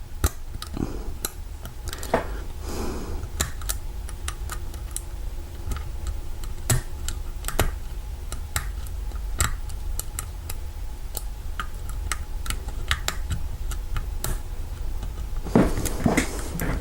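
Lock pick working the pins of an old Kwikset knob lock cylinder: irregular sharp metal clicks, with a few short scrapes about three seconds in and near the end. The lock is badly seized, and the plug turns only slightly under tension.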